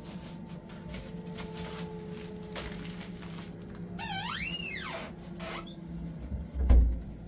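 A high squeal that rises and falls in pitch once, lasting about a second, in the middle; then a heavy low thump near the end. A steady low hum runs underneath.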